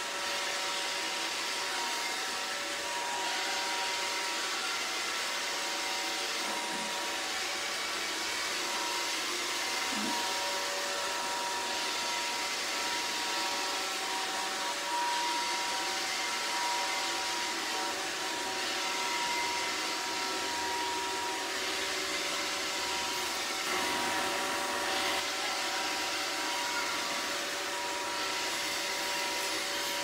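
Roomba robot vacuum running across a tiled floor: a steady whir of its vacuum motor and brushes, with a few steady humming tones.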